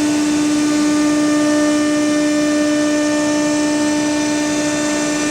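Spindle of an ACCTEK 1325 wood CNC router running at a steady high speed: an even, high whine with overtones over machine noise, unchanging throughout.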